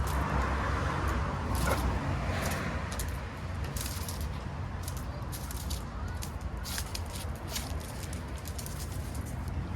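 Steady low rumble with scattered light clicks and scuffs.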